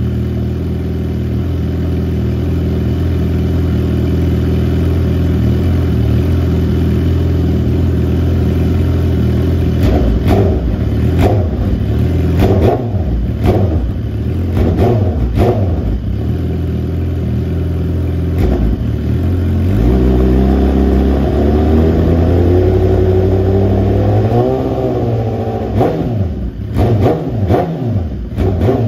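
2018 Suzuki GSX-R1000's inline-four engine breathing through a Brock's Penta-Carbon exhaust, idling steadily for about ten seconds, then revved in a string of quick throttle blips. About two-thirds of the way through comes one longer rev that rises and falls slowly, and more quick blips follow near the end.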